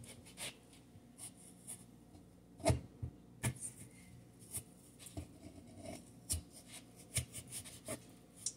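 Knife slicing raw potato on a plastic cutting board: scattered soft taps and scrapes as the blade goes through the potato and meets the board, the loudest knocks around three seconds in.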